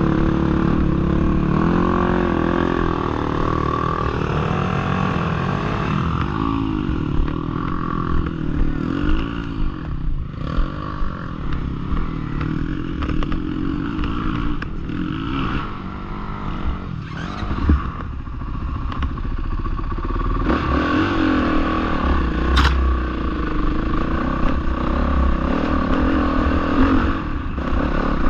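Dirt bike engine revving up and down again and again as it works over rough ground, with stones and parts of the bike clattering and knocking.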